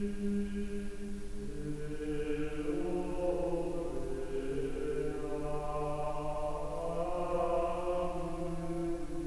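Slow background music of long held notes, chant-like, with more notes joining after about a second and a half and the sound growing fuller.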